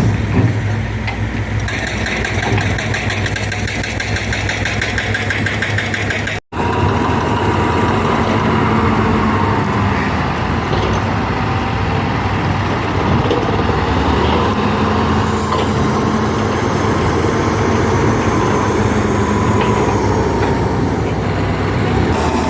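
Heavy diesel construction machinery running steadily, with a thin wavering whine over the engine. The sound cuts out for an instant about six and a half seconds in, then resumes.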